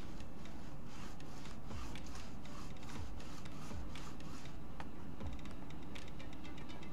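Cloth rag wiping along N scale model railroad rails, giving irregular light clicks and scrapes as it rubs over the track and rough plaster scenery.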